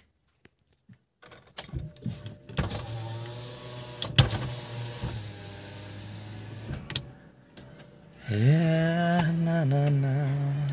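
Car power-window motors running: a steady whir for about four seconds, then a louder, higher whir starting near the end, with scattered clicks and knocks around them.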